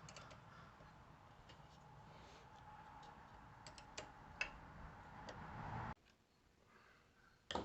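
Faint scattered ticks and light clicks over a low steady hum. The hum cuts off abruptly about six seconds in, leaving near silence.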